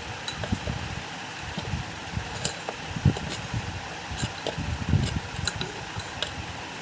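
Scattered light clicks and knocks from ceiling fan parts being handled during disassembly, over a steady background hum.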